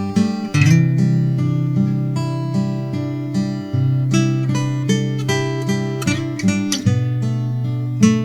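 Morris W30 steel-string acoustic guitar played solo: picked notes and chords over held bass notes, each note ringing on into the next.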